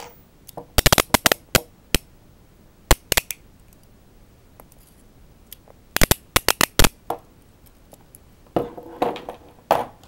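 Peerless Model 700 handcuffs being ratcheted, the single strand clicking through the lock in quick runs of sharp metallic clicks, about a second in and again around six seconds in. Near the end comes a metallic rattle with a brief ring.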